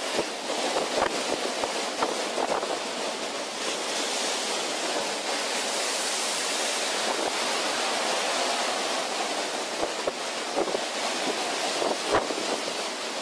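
Storm wind and rough sea rushing past a cargo ship, a steady hiss of wind and breaking waves, with wind buffeting the microphone now and then in short low thumps.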